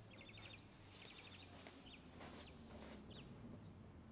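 Near silence: quiet room tone with a low hum and a few faint, short high chirps, some in quick trills.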